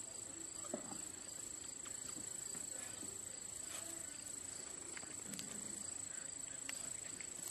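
Faint rustling and small scattered clicks of German Shepherd puppies moving and playing on dry grass, over a steady high-pitched whine. A brief low murmur about five seconds in.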